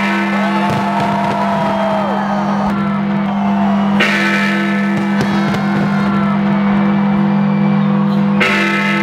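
Music with guitar over a steady low drone. It changes section about four seconds in and again near the end.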